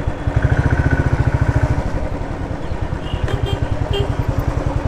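Motorcycle engine running steadily under the rider on the move, its exhaust pulsing in a rapid, even rhythm. A few faint short high tones sound about three seconds in.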